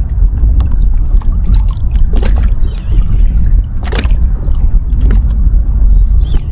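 Wind buffeting the microphone on a fishing kayak, a heavy steady low rumble, with a few sharp knocks, the loudest about four seconds in.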